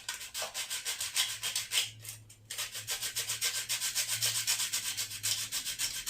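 Carbon brush from an angle grinder being rubbed back and forth on a piece of plain sandpaper in quick, even strokes, with a brief pause about two and a half seconds in. The brush is being sanded down so it slides freely past a burr in its brush holder.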